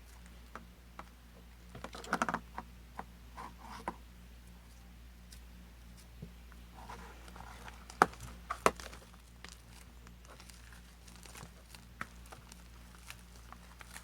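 Sticky souffle slime of glue and shaving foam being stirred and pressed down in a bowl during activation: soft crackling, squishing and tearing sounds, with a few sharp clicks, the loudest a little past halfway.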